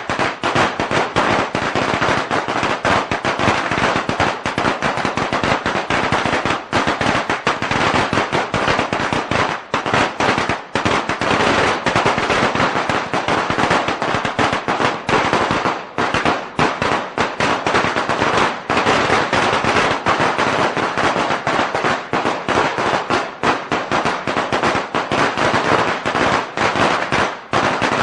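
A long string of firecrackers going off in rapid, continuous bangs that barely pause.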